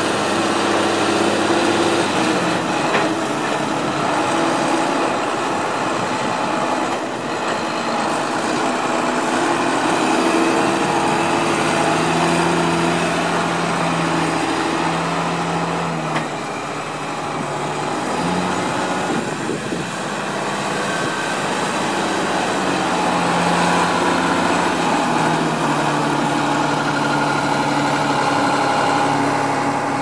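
Diesel engines of New Holland tractors working hard under load as the TM155 tows the mud-stuck G210, the engine note stepping up and down in pitch several times.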